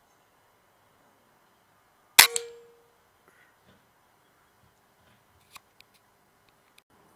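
A single rifle shot at a rat: one sharp, loud crack with a short ringing tail, followed about a fifth of a second later by a smaller second crack. A few faint clicks come later.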